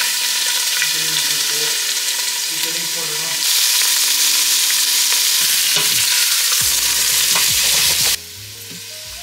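Sliced sausage sizzling in hot oil in a stainless steel pot while being stirred. The sizzle gets louder about a third of the way in and drops off sharply near the end.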